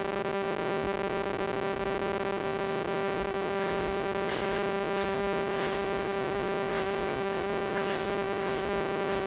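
Footsteps crunching through dry fallen leaves on a forest trail, about one a second, over a steady buzzing hum.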